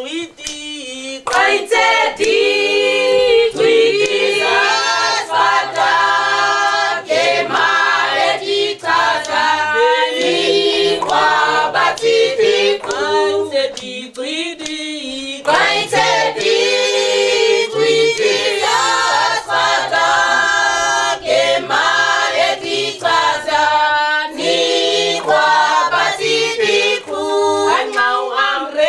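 A mixed group of men and women singing together a cappella, several voices at once. The singing is briefly quieter about halfway through, then comes back at full strength.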